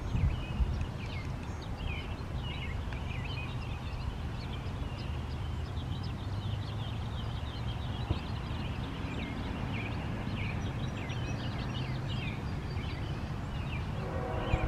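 Songbirds chirping over a steady low rumble of trackside background noise. About a second before the end, a locomotive horn starts to sound as the awaited Norfolk Southern train approaches.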